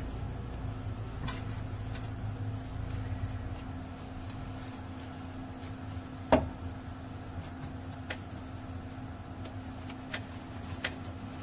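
Handling sounds as a zipper is pinned to fabric: scattered light clicks and rustles, with one sharper click a little past halfway, over a steady low hum.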